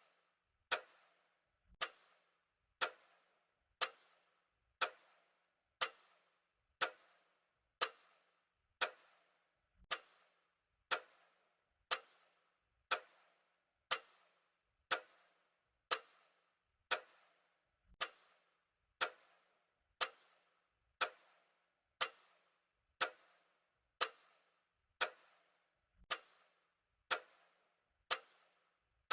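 Clock ticking steadily, about one tick a second, each tick a sharp click with a brief ringing tail.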